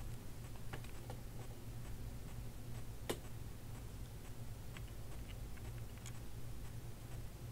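Low steady hum with faint scattered clicks and crackles, one sharper click about three seconds in; no tractor engine is heard.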